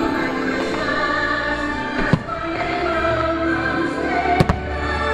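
Fireworks show soundtrack of sustained choral and orchestral music, with firework bursts banging over it: one about two seconds in and two in quick succession near the end.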